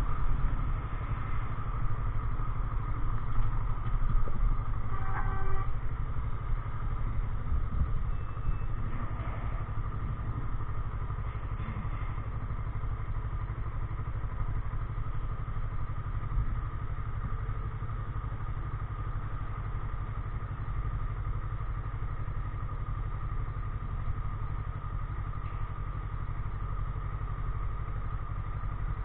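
Kawasaki ER-6n's 649 cc parallel-twin engine running steadily at low revs, picked up through an SJ4000 action camera. A short beep sounds about five seconds in.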